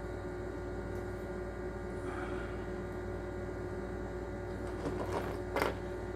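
Steady background hum, with a few small clicks and one sharper tap a little past five seconds in, from the plastic parts of an aquarium air pump being handled and fitted back together.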